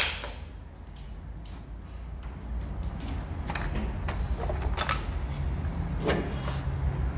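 Scattered light knocks and clicks of motorcycle front-end parts being handled during reassembly, over a steady low hum.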